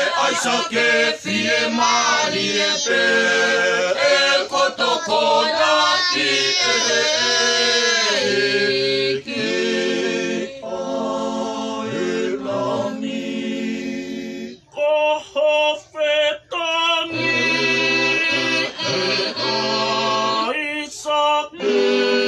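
A family group of men, women and children singing together without instruments, holding long notes. The sound drops out briefly a few times about two-thirds of the way through.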